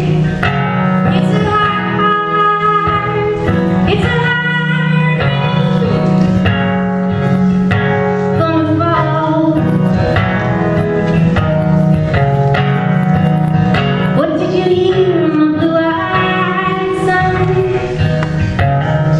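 Acoustic guitar playing sustained chords under a woman's singing voice: a folk song performed live.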